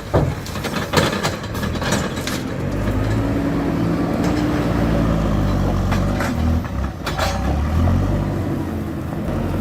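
JCB 4CX backhoe loader's diesel engine working under load, its pitch rising and falling, with several sharp knocks in the first couple of seconds and two more later on.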